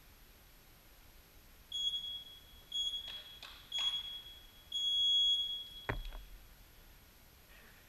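A high-pitched electronic beep sounding four times, the last beep about a second long. A few clicks fall among the beeps, and a thump comes as the last one cuts off.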